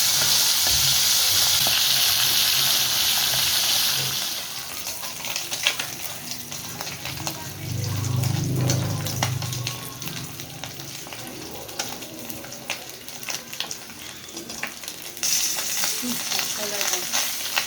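Marinated amag-amag fish frying in hot oil: a loud, high sizzle for about four seconds, which falls to softer crackling and sharp popping, then swells back to a loud sizzle near the end.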